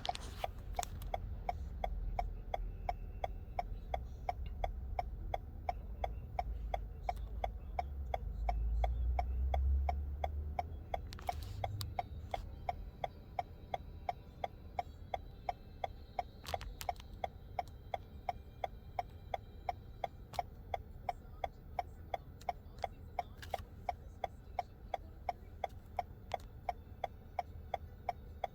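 A car's indicator ticking steadily, about one and a half clicks a second, in the cabin of a car waiting at a traffic light, over a low rumble that swells briefly about nine seconds in.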